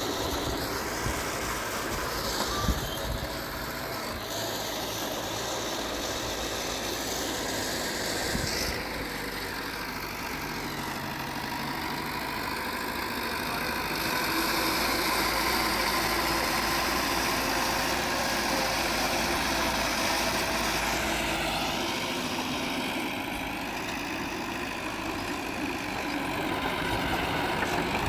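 Diesel engines of earthmoving machinery running, growing louder for several seconds midway as the machines work, with a single sharp knock a few seconds in.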